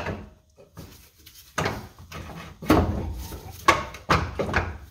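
Irregular metal knocks and scrapes of a front coil spring being lifted and worked into its seat on the lower A-arm of a car's front suspension, with about half a dozen separate clunks.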